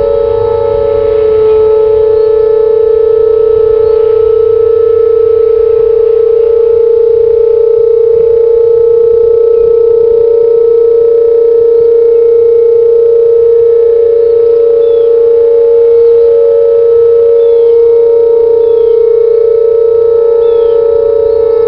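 Whelen WPS 2800-series electronic tornado sirens sounding their steady alert tone in a siren test. Several sirens at slightly different pitches overlap into one unbroken, loud steady tone.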